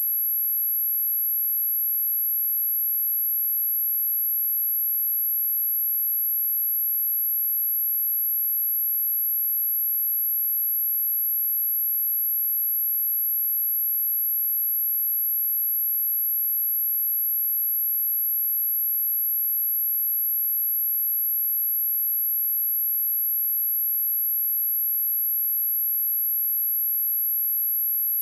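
A single steady, very high-pitched 11642 Hz sine-wave test tone, held unchanged at one pitch and level.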